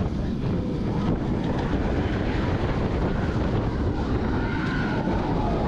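Wind rushing over the microphone and the steady rumble of the Manta flying coaster train running along its steel track.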